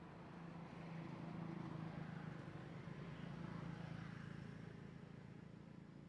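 Faint hum of a distant motor vehicle engine, swelling a second or so in, holding, then fading away as it passes.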